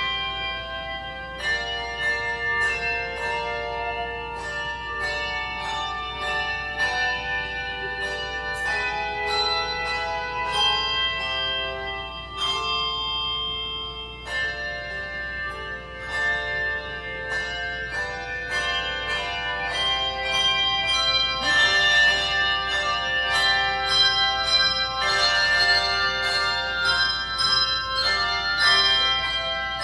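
Handbell choir playing a piece: clusters of bells struck together in chords, each note ringing on as the next ones enter, growing louder about two-thirds of the way through.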